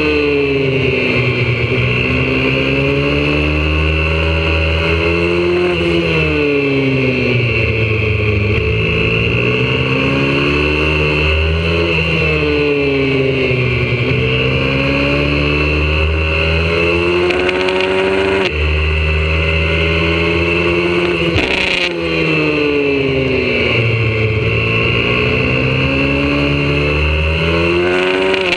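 YCF 125cc four-stroke pit bike engine at racing pace, heard onboard: its pitch climbs and falls again every few seconds as the bike accelerates and slows through the turns, over a steady hiss.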